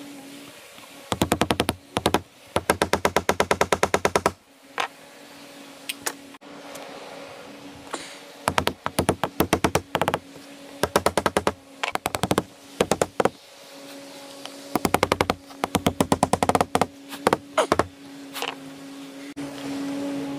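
Hammer driving capped roofing nails through corrugated Ondura asphalt-fibre roofing sheets into the shed's wooden framing, in a dozen or so quick runs of sharp blows with short pauses between. A steady low hum sits underneath.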